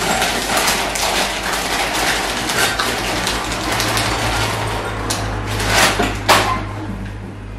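Clear plastic food bag crinkling and rustling as it is handled and opened, with a couple of sharper crackles about six seconds in. A steady low hum runs underneath from about three seconds in.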